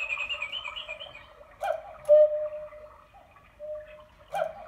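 Weight-driven Black Forest cuckoo clock striking: the bellows pipes sound the two-note "cuck-oo", a higher note then a lower held one, twice, about two and a half seconds apart, each starting with a click from the mechanism. The clock ticks in between.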